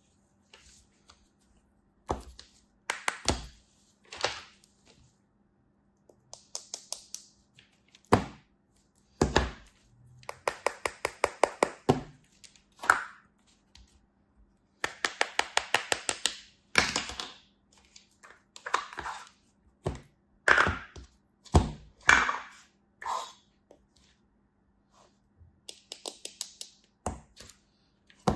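Plastic toy sand molds being handled, tapped with fingernails and lifted off kinetic sand shapes: sharp clicks and knocks in irregular bursts, some in quick rattling runs of taps.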